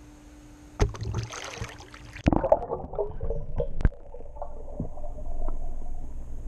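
A camera plunging into swimming-pool water: a few sharp splashes and knocks, then muffled underwater gurgling and bubbling.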